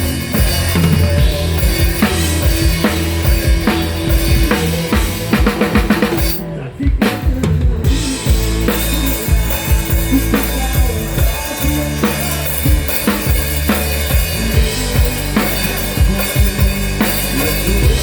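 Rock drum kit played hard with a band: kick drum, snare and cymbals over held bass notes. About six seconds in, the cymbals drop out for a moment before the beat carries on.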